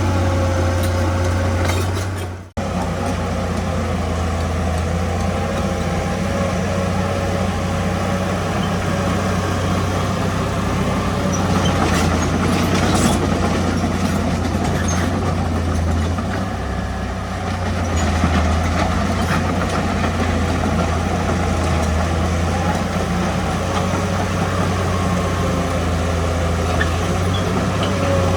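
Heavy diesel earthmoving machinery running steadily with a deep, constant engine drone. The sound drops out for an instant about two and a half seconds in, then carries on unchanged.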